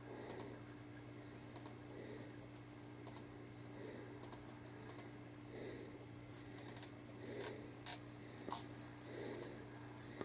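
Faint, irregular light clicks, roughly one every second or so, over a steady low electrical hum.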